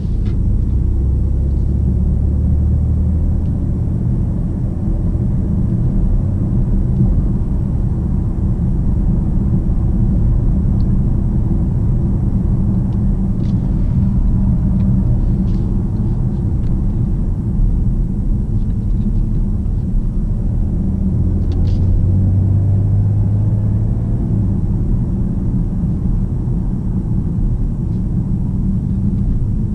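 Inside the cabin of a BMW 750d xDrive on the move: a steady low rumble of its quad-turbo diesel straight-six and the tyres on the road. The engine drone grows stronger for a few seconds at the start and again about two-thirds through.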